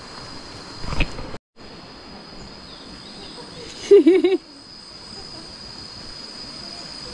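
Steady high-pitched insect drone from the surrounding jungle. A short thump comes about a second in, and a brief loud warbling call with a wobbling pitch about four seconds in.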